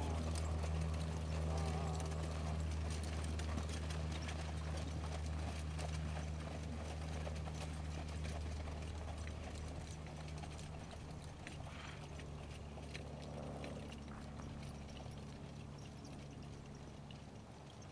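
Hooves of a four-in-hand team of German riding ponies trotting on sand: a quick, continuous patter of clip-clops. A steady low hum runs underneath, and the whole grows gradually fainter.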